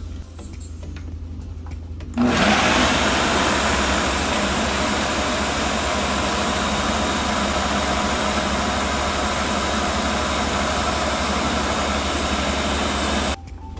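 Ninja countertop blender motor running, grinding soaked chana dal (split chickpeas); it switches on about two seconds in, runs steadily, and stops abruptly near the end.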